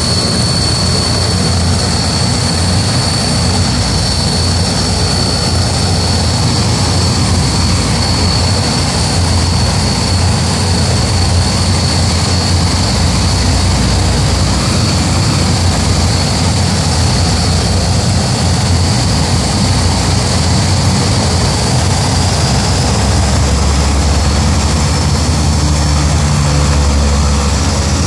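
Four Ivchenko AI-20 turboprop engines of an Antonov An-12 running as it taxis past: a steady high whine over a deep propeller drone, the drone growing heavier near the end.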